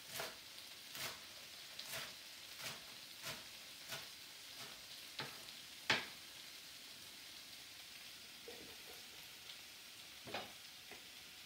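Tofu and mushrooms searing in hot oil in a wok, a faint steady sizzle. A utensil stirring them knocks against the wok in strokes about every two-thirds of a second, ending in a sharp clack about six seconds in, then once more near the end.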